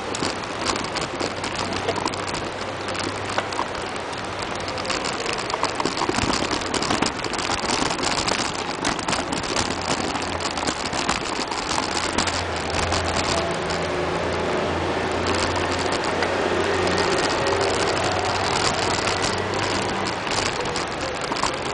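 Bicycle ridden over a rough dirt and cobblestone track: the tyres crunch and the bike rattles in a dense, continuous crackle of small knocks. A low steady hum joins in about halfway through.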